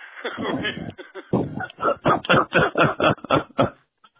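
A man laughing: a quick run of "ha"s, about four a second, that stops shortly before the end.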